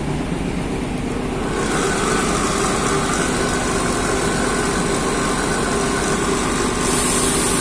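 Vapor blasting cabinet running: the blast gun sprays water-and-abrasive slurry with compressed air against a rusty cast-iron BSA cylinder block, with a steady hum from the cabinet's pump underneath. The hiss grows brighter near the end.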